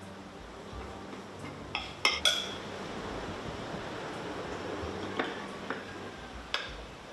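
A metal knife clinking against a plate while a cake is cut: two sharp, ringing clinks about two seconds in, then a few lighter taps later on.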